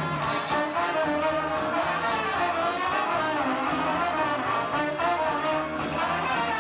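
Live swing band playing an instrumental passage between sung verses, the horn section (trumpet and trombone) carrying the tune over drums and bass, heard through a muddy VHS-C camcorder recording.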